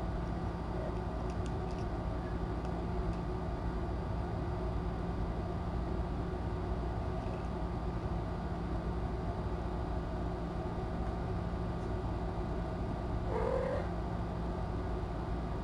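A cat meows once, briefly, near the end, over a steady low room hum.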